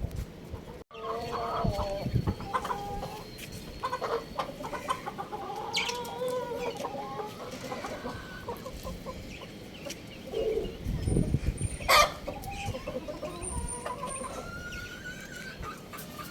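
Young rooster clucking and chirping, a run of short pitched calls that slide up and down. A sharp click about twelve seconds in is the loudest sound.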